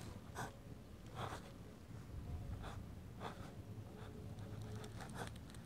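Faint scratching of a pen on paper while a signature is written, in a handful of short strokes spaced about a second apart.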